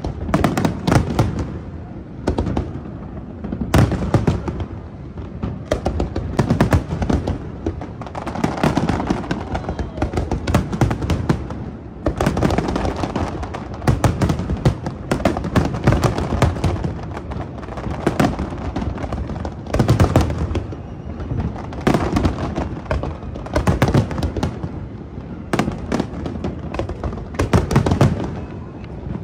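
Fireworks display: a dense, continuous barrage of aerial shell bursts, bangs and booms with crackle, swelling in louder volleys every couple of seconds.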